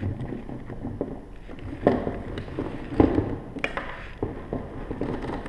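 Rope being fed through a metal triple-sheave tackle block: the three-strand polypropylene rope rubs and slides, with scattered knocks and clicks of the block, loudest about two and three seconds in.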